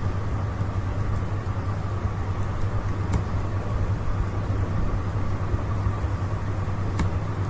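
Steady low hum with background hiss, with two short clicks, about three seconds in and near the end.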